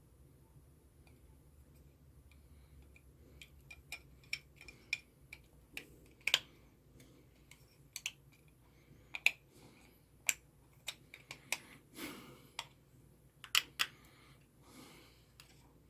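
Irregular small plastic clicks, taps and scrapes of a multimeter's display parts and case being handled and pressed together while the LCD and top cover are fitted. The clicks start a few seconds in and come unevenly, a handful louder than the rest.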